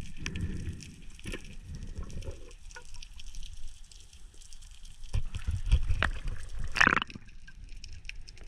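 Underwater handling noise from a freediver working a speared fish on the spear shaft: muffled water movement with scattered knocks and clicks, and a louder rasping burst about seven seconds in.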